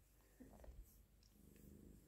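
Very faint purring of a tabby cat, a low, finely pulsing hum.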